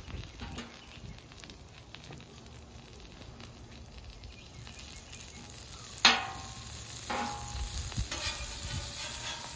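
Butter sizzling as pats of it melt on a hot steel flat-top griddle. About six seconds in there is a sharp metal clink of the blade on the griddle surface, the loudest sound, with a smaller one a second later. The sizzle grows toward the end.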